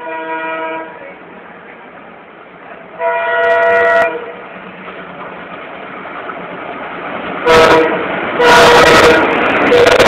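Horn of a WDG-3A diesel locomotive hauling an express train, sounded in five blasts as it approaches. The blasts grow louder, and the last three come close together near the end. From about three-quarters of the way through, the rush of the arriving train builds beneath them.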